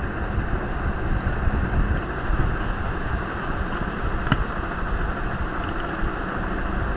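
Steady low background noise on an open microphone with no speech, with a single click about four seconds in.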